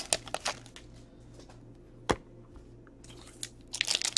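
Foil wrapper of a Topps Chrome Football card pack crinkling and rustling in the hands, briefly at the start and again near the end, with a single sharp click about two seconds in.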